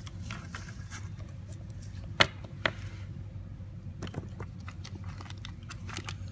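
Light clicks and taps of AA batteries being handled against a plastic charger and tabletop, two sharper clicks about two seconds in, then a scatter of smaller ones, over a low steady hum.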